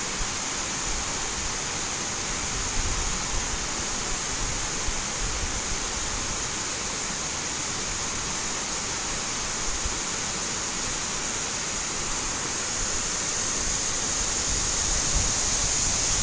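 Water cascading down a short concrete drop into an intake dam's channel: a steady rushing roar of falling white water, growing a little louder near the end.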